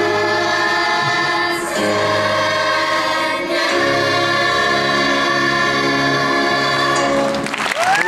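Children's choir singing long held chords with electronic keyboard accompaniment, moving to a new chord twice and closing on a final held chord that stops about half a second before the end. A sharp rising whistle begins just as the singing stops.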